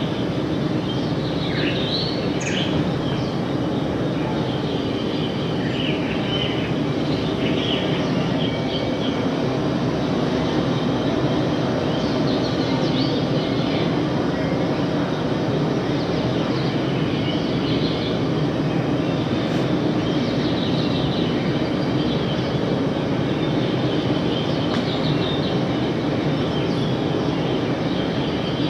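The installation's soundtrack for volcanic landscapes: a steady low rumbling drone with short high chirps scattered through it, most of them in the first half.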